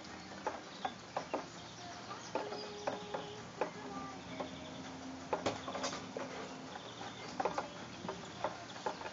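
Rain dripping during a thunderstorm: irregular sharp ticks of drops striking a hard surface, a few a second.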